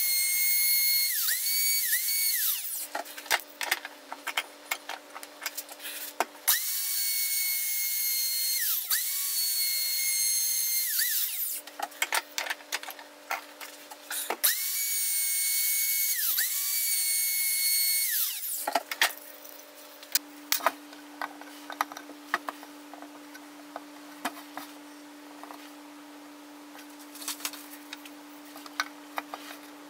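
A handheld electric power tool runs with a high-pitched motor whine in three bursts, its pitch dipping briefly as it bites into the wood. Between the bursts and after the last one, a steady low hum carries on, with scattered light knocks near the end.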